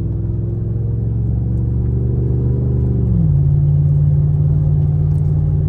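Chevrolet Silverado pickup's engine, heard from inside the cab, accelerating. Its pitch climbs slowly, drops at a gear change about three seconds in, then runs steady.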